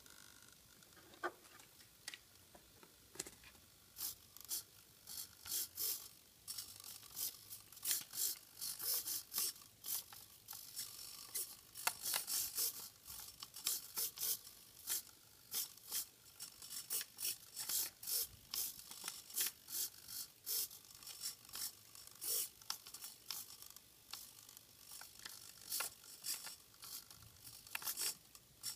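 Small hobby servos of an animatronic eyeball rig buzzing in short, rapid bursts as they move the eyeballs, a few bursts a second. It starts about four seconds in, after a couple of single clicks.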